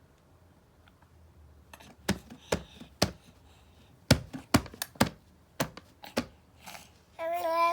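About a dozen sharp, crisp crackles spread over four seconds, from potato chips being handled or crunched. Near the end a small child starts a long, wavering vocal sound.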